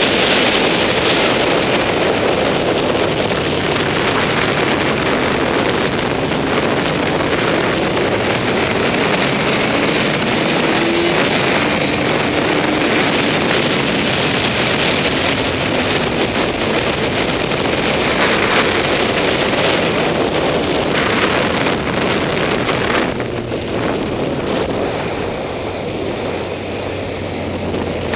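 Wind rushing over the onboard camera at speed, with the Honda CBR954RR's inline-four engine running beneath it. In the last few seconds the wind noise dies down as the bike slows.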